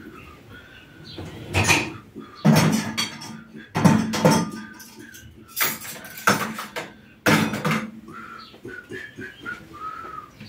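Dishes and kitchenware clattering and knocking as they are handled and set down at a kitchen counter, several separate clatters over the first seven seconds. Short high peeps sound between them, more of them near the end.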